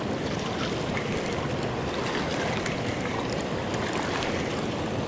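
River water running and lapping over the rocks at the shoreline, a steady wash with small splashy ticks through it.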